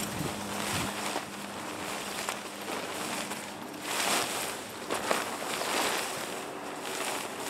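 A tent's outer cover rustling and flapping in a series of swells as it is lifted, shaken and pulled around over the tent.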